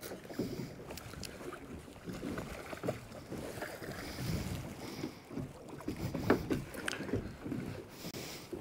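Choppy water slapping against a small boat's hull with wind on the microphone, broken by irregular knocks and clicks of tackle and handling as a fish is brought alongside; the sharpest knock comes about six seconds in.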